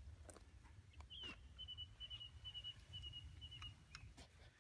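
Near quiet with a low wind rumble on the microphone, a few soft clicks and rustles from a wet landing net being handled, and a thin, high chirping series from a bird. The chirping starts about a second in and lasts about three seconds.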